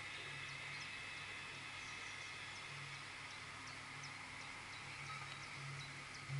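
Quiet outdoor ambience: birds chirping in short, quick falling notes, repeated irregularly over a faint steady hum.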